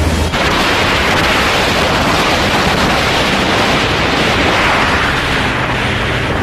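Steady, loud rush of wind and churning water past a speedboat under way at speed, with the boat's engine hum coming up near the end.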